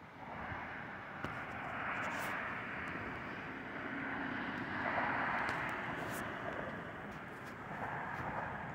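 Airplane flying overhead: a rushing engine noise that swells up about half a second in, then holds strong with slow rises and falls.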